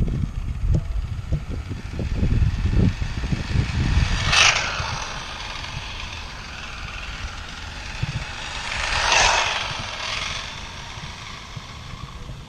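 A 3D-printed RC car with a brushless motor whirs past twice, briefly, about four and nine seconds in, the second pass swelling and fading. Wind buffets the microphone in the first few seconds.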